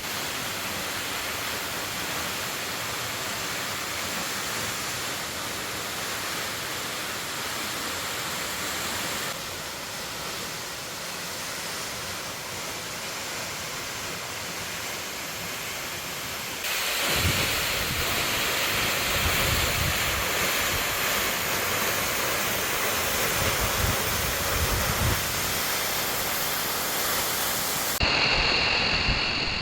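Waterfall rushing with a steady roar of falling water. The sound shifts abruptly a few times. From about halfway on it is louder, with a low, uneven rumble of wind buffeting the microphone.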